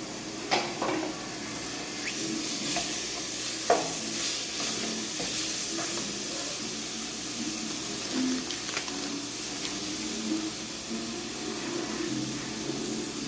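Meat frying in a pot, sizzling steadily, while a spoon stirs it and knocks and scrapes against the pot several times, the loudest knock about four seconds in.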